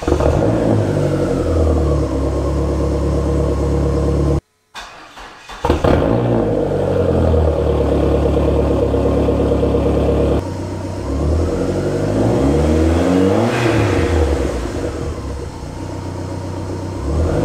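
Dodge SRT-4's turbocharged 2.4-litre four-cylinder heard at the tailpipes in back-to-back clips: idling through the stock exhaust, then, after a brief cut, idling through a 3-inch catless downpipe. About ten seconds in it switches back to the stock exhaust, with two revs that rise and fall.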